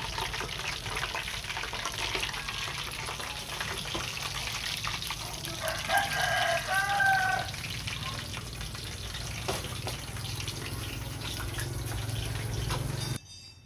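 Tofu frying in hot oil in a pan, a steady sizzle, with two short high-pitched calls in the middle. The sizzle cuts off suddenly near the end.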